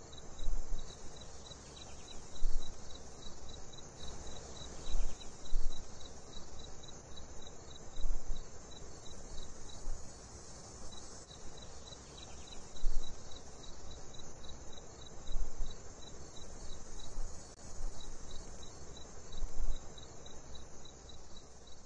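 Crickets chirping in a steady, evenly spaced pulse over a continuous high insect buzz. A short low rumble rises every two to four seconds, louder than the insects.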